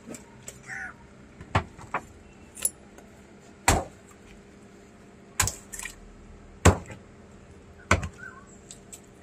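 A long, heavy knife chopping through a big catla fish into a wooden stump block: about seven sharp chops at uneven intervals of a second or so, some followed by smaller knocks.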